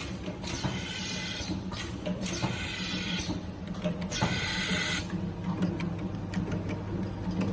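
Automatic can seaming machine running: a steady motor hum under rapid mechanical clicking, with bursts of hiss about every one and a half to two seconds that stop about five seconds in.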